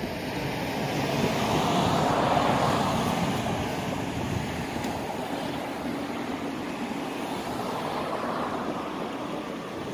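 Rushing vehicle engine noise that swells to a peak about two seconds in, fades, and swells again more softly near the end.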